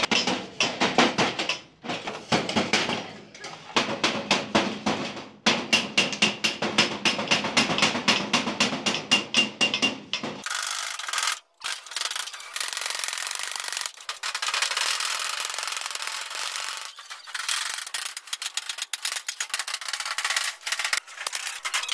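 A hammer tapping quickly on the folded edge of a galvanized sheet-metal trunk, several sharp metallic knocks a second. About halfway in this gives way abruptly to a steady rasping scrape, and quick taps come back near the end.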